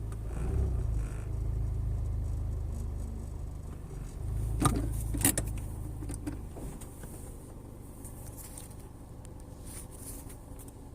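Suzuki Swift Sport (ZC33S) running with a low, steady rumble, then two sharp clicks a little over half a second apart about five seconds in, after which the rumble dies down.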